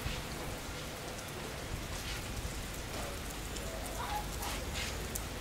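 Steady rain falling, a continuous patter of drops on the ground and surroundings.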